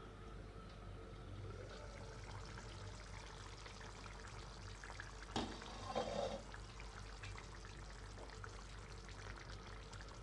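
Potato and soya chunk curry in thick gravy bubbling faintly as it simmers, over a steady low hum. A sharp knock comes about five seconds in, with a brief louder burst of bubbling just after.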